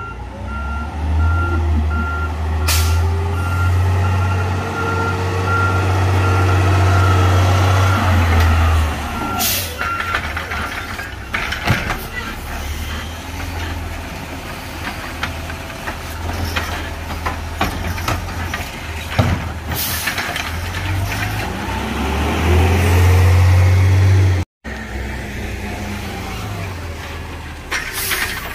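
Automated side-loader garbage truck reversing with its backup alarm beeping over the rumble of its diesel engine; the beeping stops about a third of the way through. The engine revs up twice, and there are a few sharp air-brake hisses.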